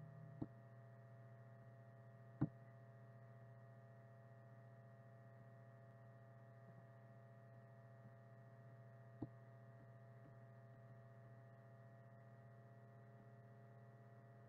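Near silence with a steady low electrical hum, broken by three short, sharp clicks of a computer mouse; the second, a couple of seconds in, is the loudest.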